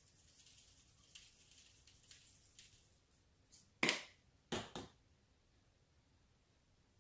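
Dry garlic and herb seasoning blend shaken from a spice shaker, a light rattling hiss of granules for about three seconds. This is followed by a few sharp clicks or knocks about four seconds in.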